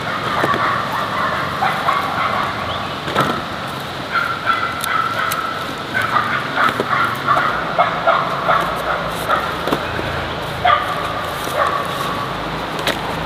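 Ginger roots being picked out of loose soil and dropped into a woven bamboo basket: scattered light knocks, clicks and rustling. A wavering high-pitched sound runs in the background.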